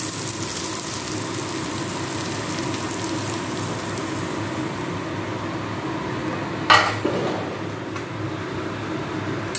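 Chopped vegetables sizzling steadily in hot oil in a frying pan, with one sharp clank about seven seconds in.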